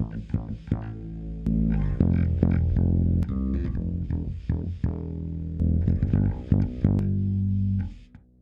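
Electric bass guitar playing a run of plucked notes, which fade out just before the end.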